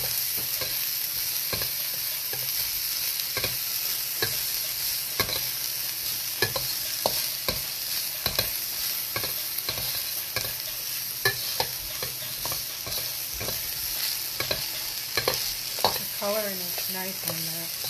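Diced corn, mushrooms and vegetables sizzling in a hot steel wok while a metal ladle stirs them, scraping and knocking against the pan about once or twice a second.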